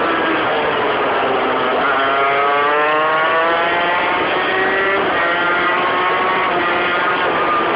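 Modified Peugeot 103 RCX moped's 50 cc geared two-stroke engine at high revs, heard from on board. The pitch falls at first, then climbs steadily from about two seconds in, drops sharply about five seconds in at a gear change, and climbs again.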